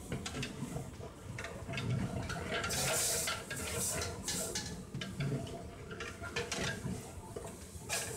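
Long metal ladle stirring and scraping in a large aluminium cooking pot, with repeated clinks and scrapes against the pot, thickest in the middle of the stretch.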